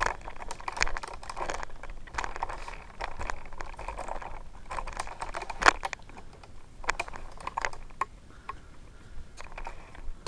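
Handling noise: scattered light clicks and rustling, with one sharper click a little past halfway.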